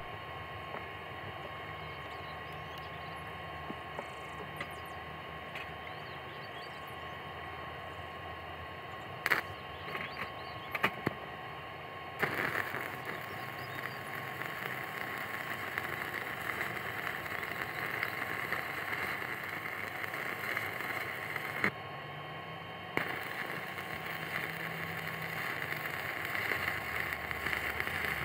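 Stick-welding arc from an AP Welding MMA-400 inverter welder, crackling and hissing steadily. It starts about twelve seconds in after a faint, steady first stretch with a couple of sharp clicks. It breaks off briefly about twenty-two seconds in and then restarts.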